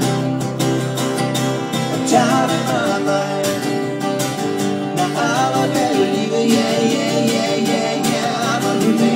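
Live acoustic duo: two acoustic guitars strummed in a steady rhythm, with a man singing into a microphone from about two seconds in.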